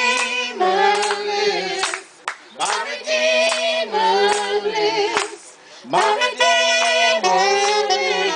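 Group of singers, mostly women's voices, singing a gospel song in three phrases with short breaks between them, with hands clapping along on the beat.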